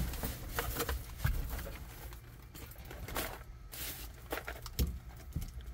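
Rustling and scattered light clicks of dash cam cables and plastic connectors being handled.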